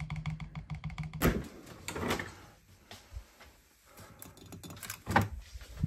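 A rapid, even tapping over a low hum cuts off about a second in. It gives way to handling noise as a fridge is reached into and a red-lidded jar is taken from the shelf, with several sharp knocks and rubbing sounds.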